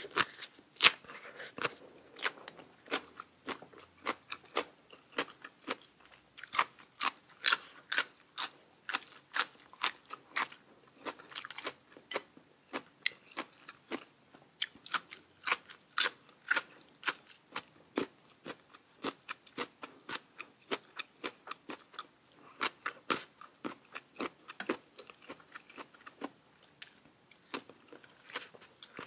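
A person chewing crunchy green papaya salad (som tam) close to the microphone: crisp crunches come a few a second, thinning out a little toward the end.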